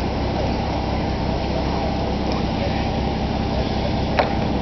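Steady low mechanical hum with faint voices talking in the background, and one sharp click about four seconds in.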